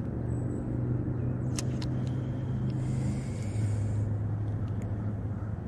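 A steady low motor hum that drops slightly in pitch about three seconds in, with a couple of faint clicks.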